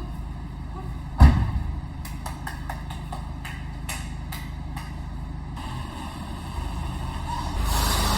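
A car running, with a steady low rumble. There is a heavy thump about a second in, scattered light clicks, and the rumble gets louder near the end.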